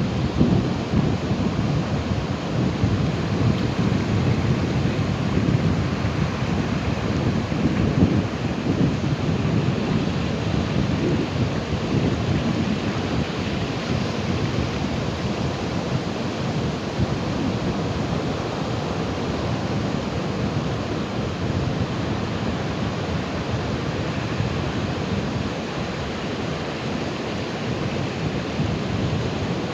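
Ocean waves surging and breaking in a continuous deep wash of surf. It is heaviest and most surging over the first ten seconds or so, then evens out.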